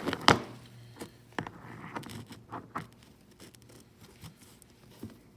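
Metal clicks and knocks as the two steel halves of a homemade bullet mold are handled and fitted together on their alignment pins, a sharp click just after the start and smaller ones scattered through.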